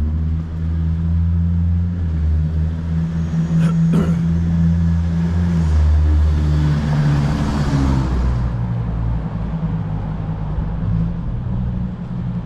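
Road traffic: a motor vehicle's engine running with a steady low hum, and a vehicle passing with a swell of tyre and engine noise about six to eight seconds in. There is a sharp click about four seconds in.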